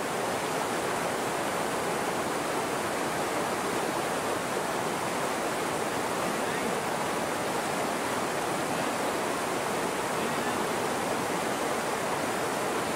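Fast, turbulent river rushing over rocks: a steady, unbroken rush of water.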